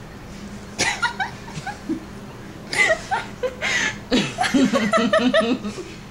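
A woman laughing in fits and snickers, breaking into a quick run of ha-ha-ha pulses, about five a second, around four seconds in.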